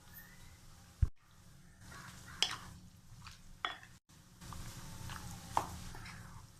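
Chicken being mixed with its marinade in a bowl: wet stirring and scraping, with a few clinks of utensil on the bowl and a sharp knock about a second in.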